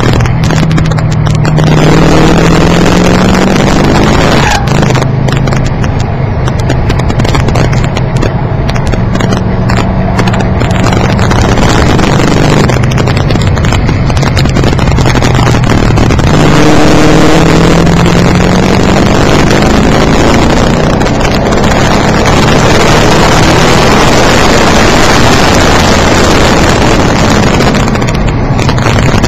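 Car engine and road noise heard from inside the cabin during a fast lap, very loud and distorted by an over-sensitive microphone. The engine note climbs in pitch under acceleration and falls away at gear changes or lifts, twice over.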